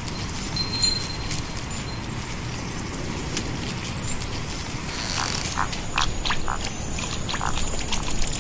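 Pond ambience: frogs croaking in short calls, a couple a second, from about five seconds in, over a steady background hiss, with small high chirps earlier on.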